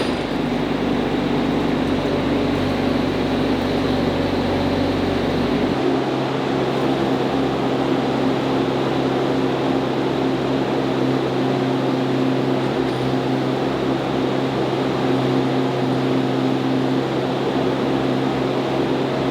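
RIPPA R22-3 PRO mini excavator's diesel engine running steadily with a droning hum; about six seconds in the deepest rumble drops away and a higher steady hum carries on.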